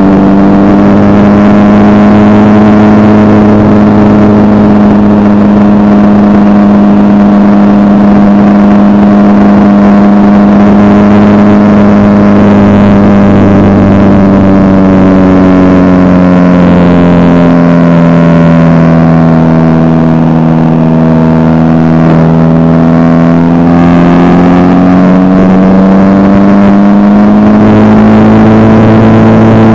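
Aerobatic biplane's piston engine and propeller, heard from on board the aircraft: a loud, steady drone. Its pitch sags for several seconds past the middle and climbs back near the end as the plane flies aerobatic figures, with a rush of air beneath it.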